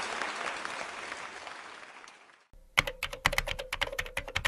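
Applause fading out over about two and a half seconds. Then a quick run of keyboard typing clicks, a typing sound effect for on-screen text, lasting about two seconds.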